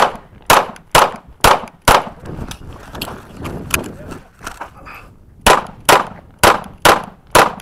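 Kahr CW9 9mm pistol firing 115-grain full metal jacket rounds in rapid strings: about five sharp shots half a second apart, a pause of about three and a half seconds with fainter knocks and scuffs, then another five shots at the same pace.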